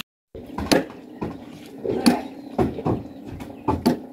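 A series of irregular sharp knocks, about eight in four seconds, over a low steady hum.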